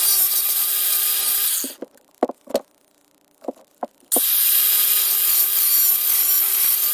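Angle grinder grinding an alloy inlet manifold to clean up the ported inlets. It runs in two spells: the first stops about a second and a half in, and the second starts about four seconds in. In between come a few short knocks as the part is handled.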